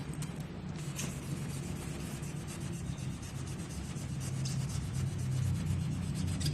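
Sandpaper rubbing over a powder-coated surface: steady scratchy sanding strokes over a low, steady hum.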